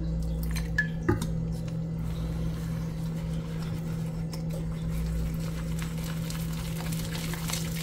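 Small wire whisk stirring a thick, pasty batter of sour tapioca starch and egg in a ceramic bowl, a soft wet squishing and scraping, with a splash of water poured in at the start. A steady low hum runs underneath.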